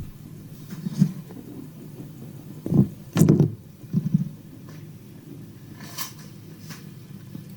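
Several dull thumps and knocks, a cluster of them in the middle, followed by two lighter clicks.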